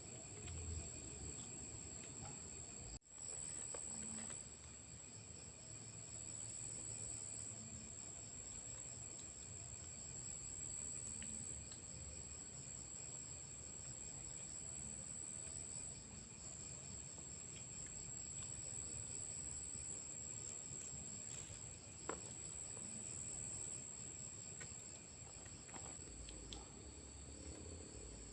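Crickets trilling steadily at a high pitch in the night, with a few faint clicks and one sharper click about three quarters of the way through.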